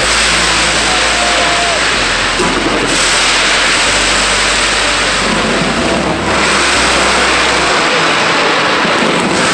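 Fireworks display at close range: a loud, continuous rushing crackle and hiss from streams of sparks, with no separate bangs standing out.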